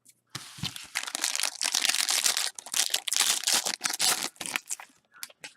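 Foil wrapper of a trading-card jumbo pack being torn open and crinkled, a dense crackle of quick rustles lasting about four seconds.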